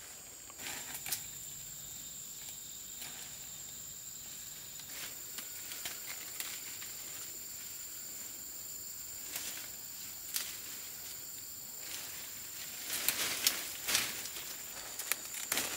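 Leafy stems and leaves rustling and snapping as wild greens are picked by hand, in short scattered bursts with a louder cluster near the end. A steady high-pitched insect drone runs underneath.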